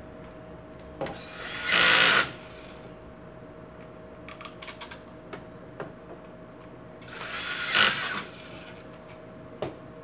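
Power screwdriver run in two short bursts of about a second each, driving screws while a fan is put back together, with small clicks and knocks of parts between the bursts.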